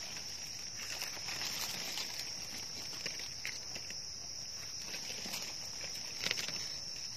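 Steady high-pitched drone of forest insects, with soft rustling of dry leaf litter and small clicks and scrapes as a mushroom is cut out of the ground with a knife; a brief cluster of rustles comes about six seconds in.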